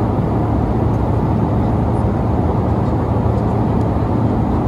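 Steady cabin noise of an Embraer 175 in flight: the even rush of airflow and engine noise, with a constant low hum underneath.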